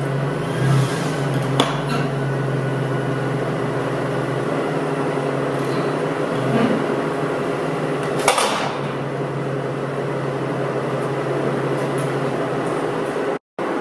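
Van engine running at a low, steady idle as the van creeps onto an LED crossing signal light, with a few sharp knocks from the tyre and the light's wooden frame. The loudest knock comes about eight seconds in.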